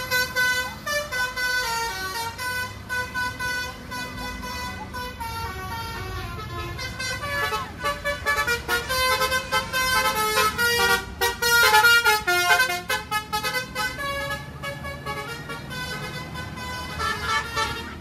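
Bus's telolet basuri horn, a multi-note air-horn set, playing a melody of quick, changing notes, busiest in the middle.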